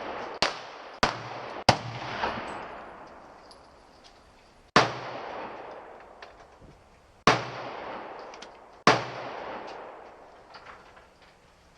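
Gunshots: three shots a little over half a second apart, then three more spaced about one and a half to two and a half seconds apart. Each shot is followed by a long echoing tail.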